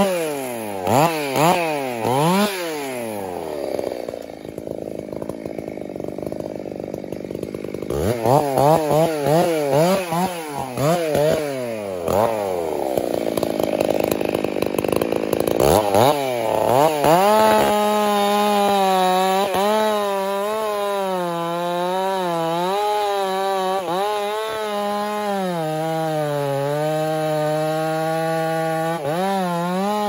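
Two-stroke chainsaw with a 28-inch bar cutting into the trunk of a large conifer during felling. The throttle is blipped up and down in quick revs, then from about halfway it is held at full throttle in a long cut, the pitch dipping and recovering as the chain loads up in the wood, falling away near the end.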